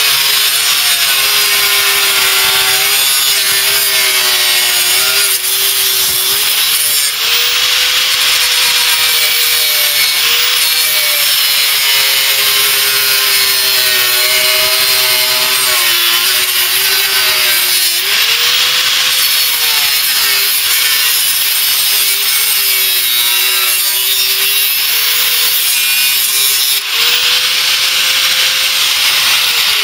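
Angle grinder with a thin cutting disc cutting through sheet steel: a loud motor whine that sags in pitch each time the disc bites into the cut and rises again as it eases off, over a steady hiss from the cut. At the very end the motor is switched off and starts to wind down.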